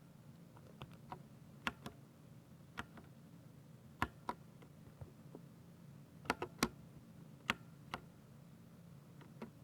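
Keys on a Ducky 60% mechanical keyboard with silver switches being pressed one at a time, giving sharp, separate clicks at an uneven, unhurried pace, some in quick pairs, over a faint steady low hum.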